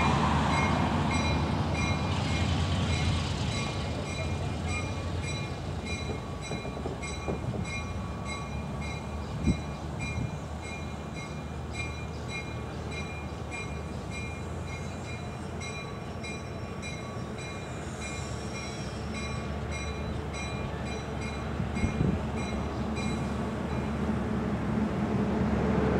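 A Baldwin-Lima-Hamilton RS4TC diesel locomotive rumbling as it rolls slowly along the track, the engine louder at the start and end. A bell rings at a steady beat over it until shortly before the end, with a sharp knock about nine seconds in.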